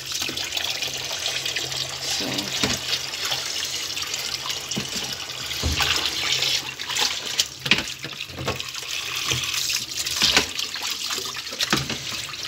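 Kitchen tap running into a basin of water in a stainless-steel sink, with hands splashing in the water now and then as fish are rinsed.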